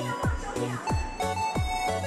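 Electronic background music with a steady beat: a deep kick drum that drops in pitch on each hit, a bass line and a held synth note.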